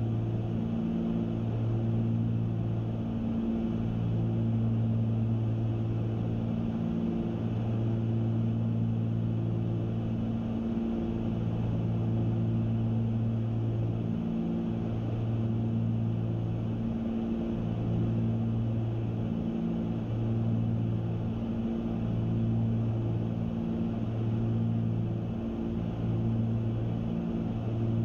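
Cabin drone of a Cessna 310Q's two piston engines and propellers in flight: a steady low hum that swells and dips in a slow, regular throb every second or two, over an even rush of air noise.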